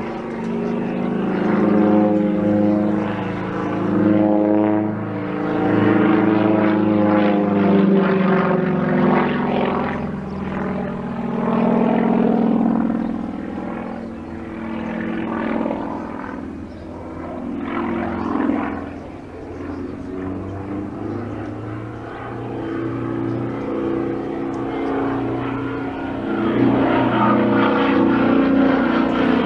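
Sukhoi Su-26M aerobatic plane in flight: its nine-cylinder M-14P radial engine and propeller drone while the pitch shifts up and down through the manoeuvres. The sound weakens for a while in the middle and grows louder again near the end.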